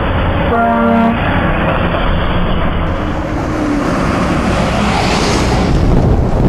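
Truck air horn giving one short blast about half a second in, over loud, steady heavy-engine and road noise from passing traffic.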